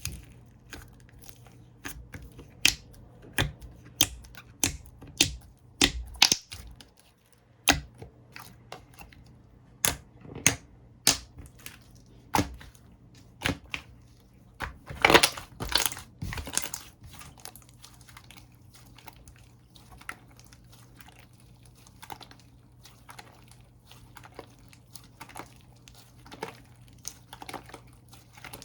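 Slime being squeezed and poked by hand, making irregular sharp sticky pops and clicks. A denser crackling run comes about halfway through, then softer crackles.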